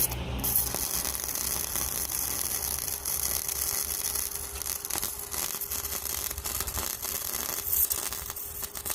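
Small MIG welder running: a steady electrical hum under a thin, crackling hiss of the welding arc.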